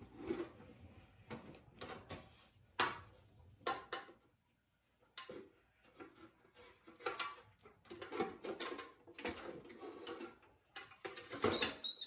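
Irregular knocks and clatters of hard objects being handled and set down, like dishes or containers. The sound cuts out entirely for about a second partway through.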